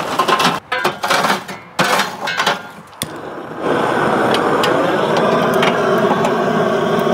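Lumps of charcoal clattering irregularly as they are poured into a charcoal grill. A click about three seconds in, then a handheld gas torch roaring steadily as it lights the coals.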